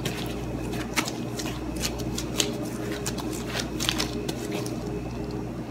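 Gloved hands kneading and rolling soft bread dough on a countertop: irregular soft taps and rubbing, over a steady low hum.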